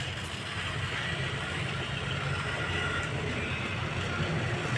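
Steady background rumble with a low hum, no distinct knocks or clicks.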